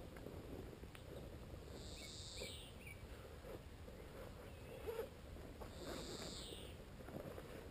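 Birds calling outdoors: two high, hazy calls about four seconds apart, with a few small chirps between, over faint rustling and a soft knock about five seconds in.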